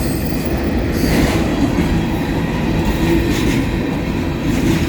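Union Pacific freight train cars rolling past close by: a steady rumble of steel wheels on rail, with a few clacks as wheels cross rail joints.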